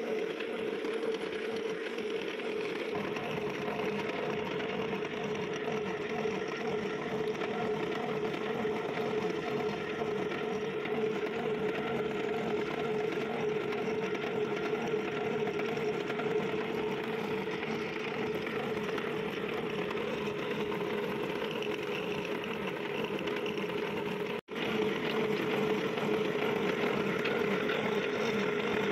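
Lathe with a spinning toothed disc cutter machining the thread of a steel worm shaft, coolant flowing over the cut. It gives a steady machine whir with a constant hum, and the sound cuts out for an instant near the end.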